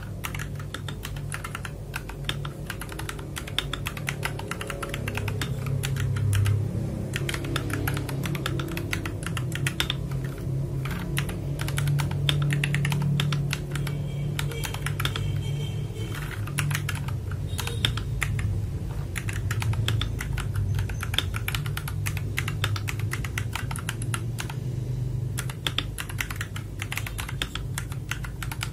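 Continuous fast typing on an FL Esports MK870 mechanical keyboard fitted with brown and Akko switches: a dense clatter of key clicks.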